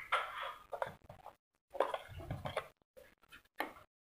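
Soaked rice being tipped out of a steel bowl, the wet grains sliding and scraping against the metal. The sound comes in three short spells with dead-silent gaps between them.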